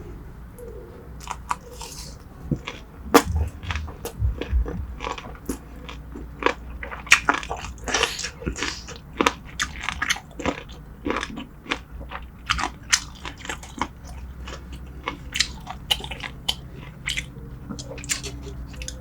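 A person chewing and crunching mouthfuls of spicy braised seafood close to the microphone: an irregular run of sharp crunches and wet smacks, with a few low thumps about three to four seconds in.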